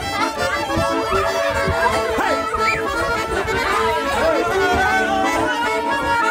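Accordion playing traditional-style music with steady held notes, with a few voices calling out over it.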